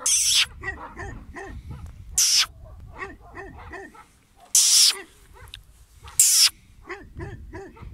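Guard dogs barking in a steady run of short, deep barks, two to three a second. Four short, loud hissing bursts cut in over the barking.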